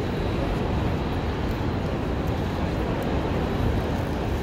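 Steady low rumble of busy city street noise, mostly traffic. There is no guitar or singing.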